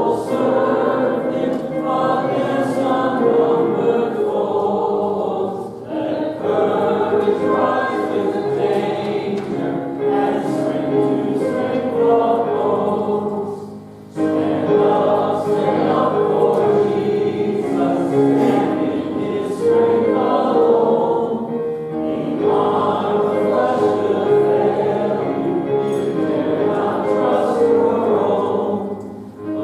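A congregation singing a hymn together in church, holding steady notes and pausing briefly between lines.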